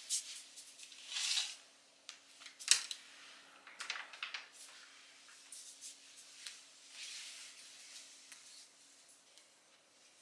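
Soft footsteps and rustling of clothing or curtain fabric as someone moves about a room, in irregular swishes, with one sharp click about three seconds in.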